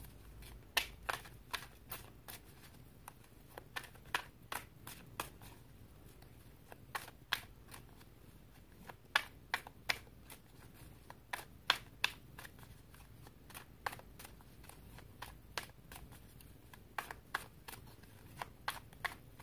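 A tarot deck being shuffled by hand: sharp, irregular card slaps and snaps, about two or three a second, with brief pauses.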